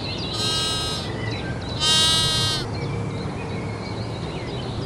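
Sheep bleating twice: a shorter bleat, then a louder one about two seconds in.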